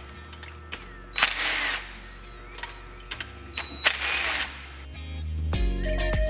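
Two short bursts of a power tool, each about half a second long, with scattered tool clicks between them, as the oil pan bolts are run out. Music fades in near the end.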